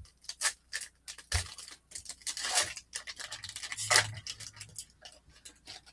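A foil-lined 2021 Bowman Draft trading-card pack wrapper being torn open by hand: a run of sharp crinkling crackles, with a longer tearing rustle a little over two seconds in and another short rip about four seconds in.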